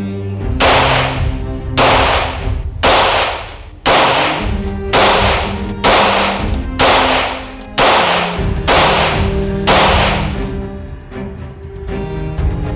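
Music with a run of about ten sharp cracks, roughly one a second, each fading away over most of a second, over steady held low notes. The cracks stop about ten seconds in and the music carries on.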